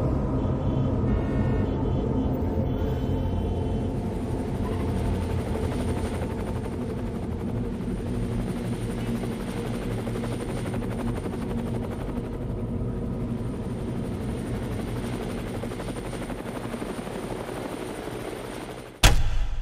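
A low, steady rumbling drone with several held tones, fading slowly, then a sudden loud hit about a second before the end.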